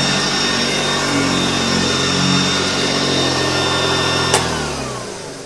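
1967 Hoover Junior 1334E upright vacuum cleaner's motor running steadily with a high whine, then a click about four seconds in as it is switched off, its pitch falling as it winds down. It is running smoothly on freshly replaced carbon brushes and newly greased bearings.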